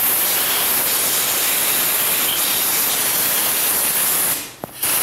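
Compressed-air blow gun blasting a loud, steady hiss into the bobbin and feed-dog area of an industrial sewing machine, blowing out lint and debris. The blast cuts off for a moment near the end and starts again.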